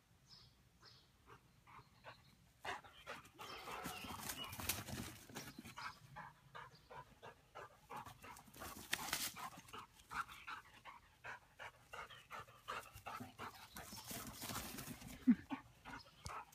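A dog panting hard after running, about three breaths a second, faint at first and louder from about two and a half seconds in, with one short vocal sound near the end.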